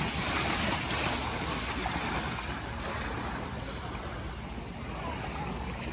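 Steady rushing noise at an outdoor pool, with no distinct events.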